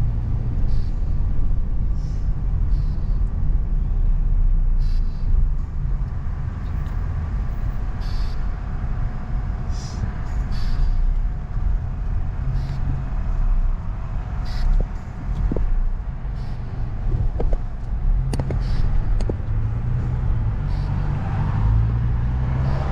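Car cabin noise while driving: a steady low rumble of engine and tyres on the road, with a few faint brief clicks and squeaks.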